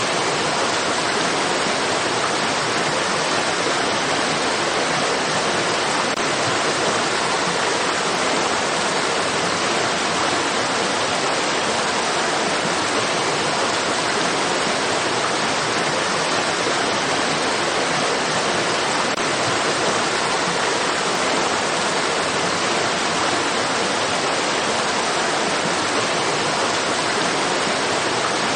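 Flowing stream water rushing steadily, an even hiss with no separate splashes or changes.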